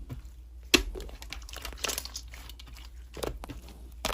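Slime being worked by hand, giving irregular crinkly, crackling pops and squishes.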